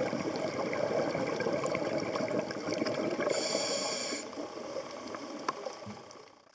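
Underwater scuba diving sound: a steady rush of regulator exhaust bubbles for about four seconds, with a brief high hiss about three and a half seconds in, then quieter water noise with faint scattered clicks that fades out at the end.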